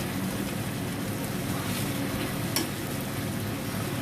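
Chicken pieces sizzling as they brown in a hot pan while being turned over one by one, with stirring and scraping sounds. A single sharp click a little past halfway.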